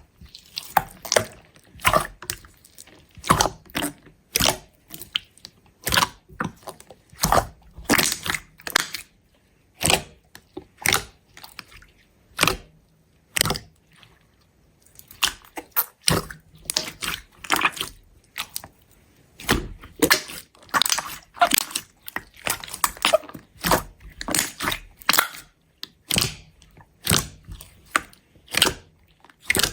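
Slime being squeezed and pressed by hand, giving a run of sharp crackles and pops about one or two a second, with brief lulls in between.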